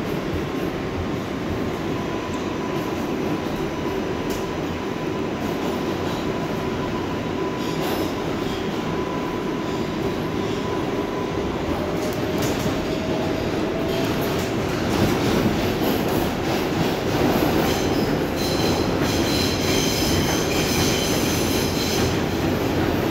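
An R142A subway car running, heard from inside the car: a steady rumble of wheels on rail. About halfway through a faint whine rises in pitch. In the last several seconds a high-pitched squeal of the wheels on the rails joins in, and the car gets a little louder.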